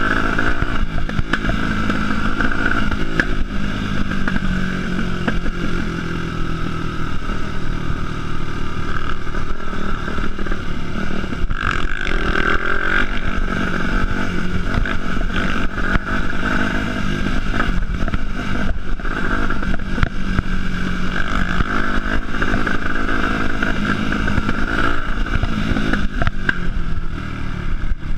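A Yamaha four-stroke dirt bike's engine running along a rough dirt trail, the throttle opening and easing off so the pitch rises and falls, with occasional knocks from bumps in the track.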